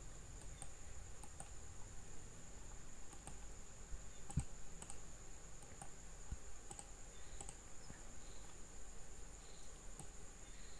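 Scattered clicks of a computer mouse and keyboard, with two soft low thumps near the middle, over a faint steady high-pitched whine.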